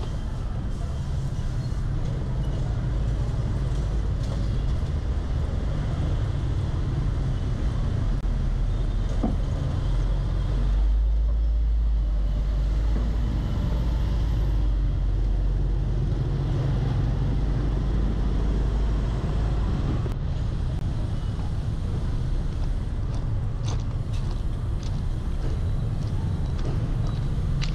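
Urban street ambience: a steady low rumble of road traffic, with a deeper, stronger rumble for about ten seconds in the middle.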